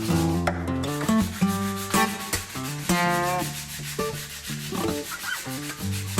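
Sandpaper rubbed back and forth over a wooden stock in steady strokes, under background music with changing notes and a drum beat.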